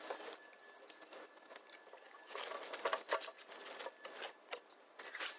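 Handling noise from a welder's fabric cover and power cable: irregular rustling and crinkling with small knocks, busiest a little past halfway through.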